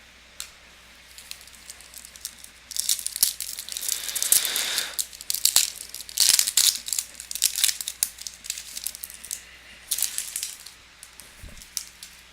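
Foil trading-card pack wrapper crinkling and tearing in the hands as a pack of Topps Chrome baseball cards is opened, in irregular crackly bursts with sharp little clicks, busiest in the middle and dying down near the end.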